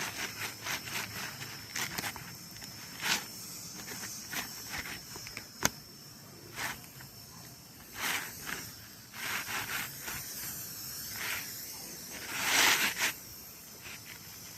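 Old asphalt roof shingles being worked by hand, unsealed, lifted and laid back down: scattered short scrapes, rustles and clicks, with a sharp click about six seconds in and a louder, longer hissing scrape near the end.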